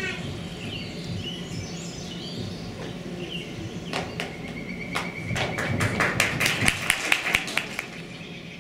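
Scattered hand claps from a small audience: a few single claps about four seconds in, then quicker and denser for a few seconds before dying away. A faint steady high tone runs under the clapping.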